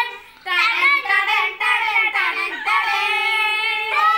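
Children singing together, a lively welcome song. The singing starts about half a second in, and there is a long held note near the end.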